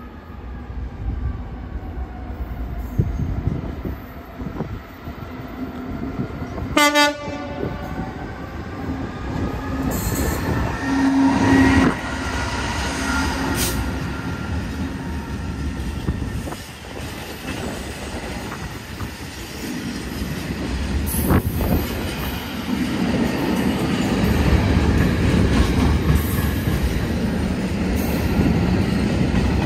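Class 66 diesel-electric freight locomotive approaching and passing with a loaded freight train. It gives a short horn blast, its two-stroke EMD engine is loudest as it goes by, and then the long rake of covered wagons rolls past with rumbling and clattering wheels.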